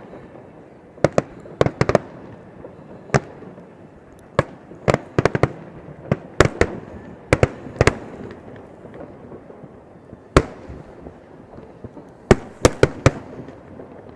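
Fireworks display: aerial shells bursting as sharp bangs in irregular clusters, a dozen or more, with a steady low rumble between them.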